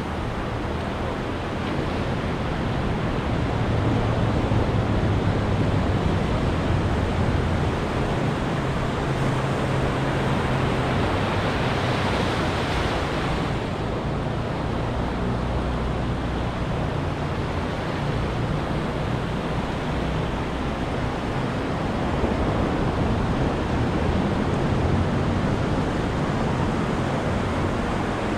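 Ocean surf washing on a beach: a steady rush with slow swells as waves break. About twelve seconds in, one wave surges up with a brighter hiss and cuts off suddenly a moment later.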